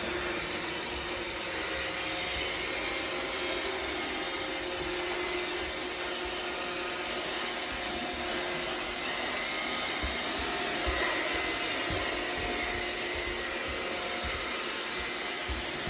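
iRobot robot vacuum running: a steady whirring hum of its motor and brushes, holding an even level throughout.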